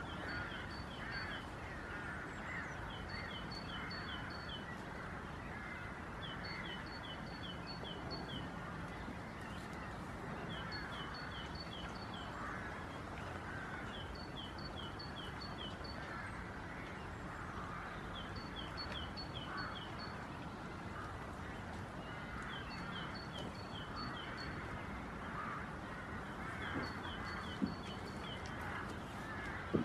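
Birdsong: a small bird repeats a short phrase of four or five quick high notes about every two seconds, over a steady chatter of many birds calling.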